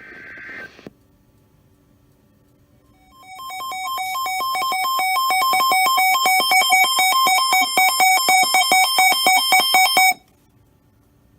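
A short buzzy data burst of emergency-alert header tones, then about seven seconds of a weather-radio alert alarm: rapid electronic beeping alternating between two tones, rising in loudness and then cutting off abruptly. It announces an incoming warning message.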